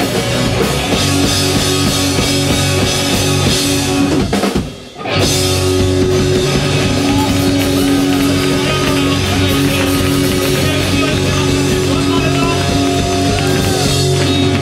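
Live rock band playing loud: electric guitars, bass and drum kit together. About four and a half seconds in, the whole band stops dead for half a second, then crashes back in together.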